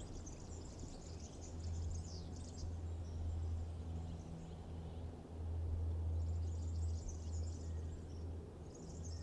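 Birds chirping in short high bursts over a low steady hum.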